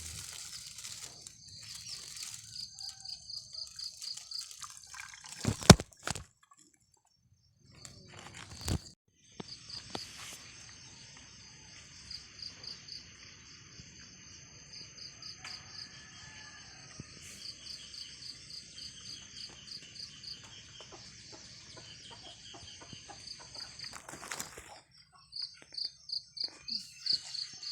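Insects chirping in a high, pulsing trill that repeats steadily. Two sharp knocks stand out, one about six seconds in and one about nine seconds in, with a brief silence between them.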